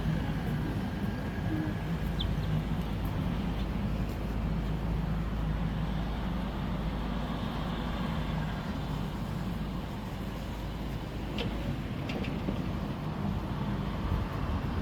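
Steady low rumble of vehicle noise in a city, with a few faint ticks near the end.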